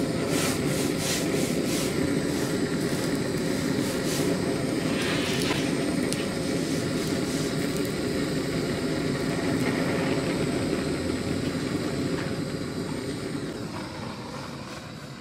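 Gas torch flame blasting with a steady jet roar against a plastic cola bottle, with scattered crackles over the first few seconds; the sound fades away near the end.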